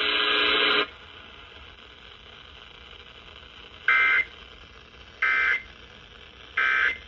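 Emergency Alert System end-of-message data bursts over FM radio: three short, high, buzzy digital squawks about a second and a half apart, the coded signal that closes the alert. Before them a steady held tone cuts off within the first second.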